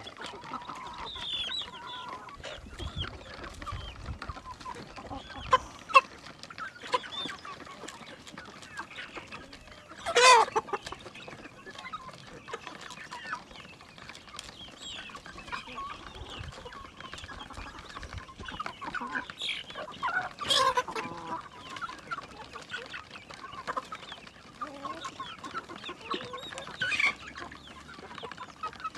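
A flock of hens clucking steadily while pecking feed from a plastic trough, with sharp taps scattered throughout. Three louder squawks come about a third of the way in, about two-thirds in, and near the end.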